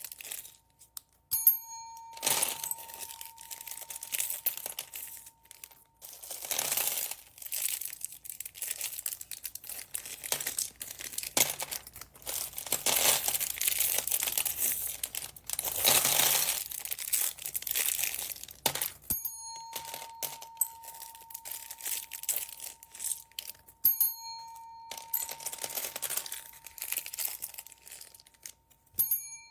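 Plastic packaging bags crinkling and rustling as they are handled, in repeated bursts with small clicks. A thin steady ringing tone comes in twice, once early and once in the second half.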